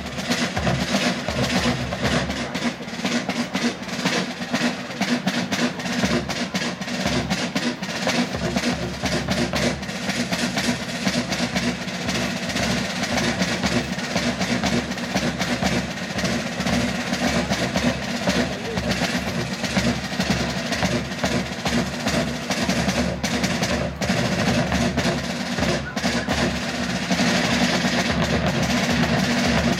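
Military field band playing, with rapid snare drumming and drum rolls over sustained low notes.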